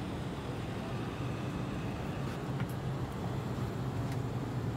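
Airbus A319 cabin ambience with the aircraft at a standstill: a steady low hum under an even hiss, with a couple of faint clicks.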